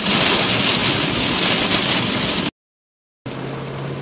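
Heavy rain pelting a car's roof and windshield, heard from inside the cabin as a loud, steady hiss. It cuts off abruptly about two and a half seconds in, and after a brief silence a quieter steady cabin noise with a low hum follows.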